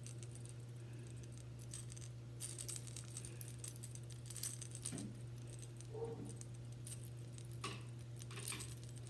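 Dogs barking faintly a few times in the second half, over light clicking and rattling from handling the fishing line and hook, with a steady low hum underneath.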